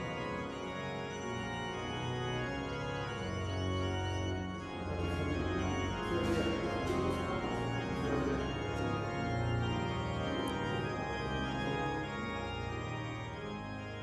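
Organ music: slow, held chords over sustained bass notes that change every second or two.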